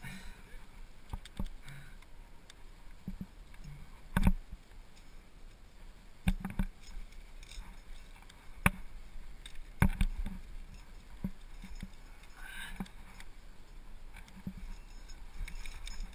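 Irregular knocks, scrapes and clicks of a rock climber's hands, shoes and gear against the rock, close to a helmet-mounted camera. The loudest knocks come about four seconds in and again around nine to ten seconds in.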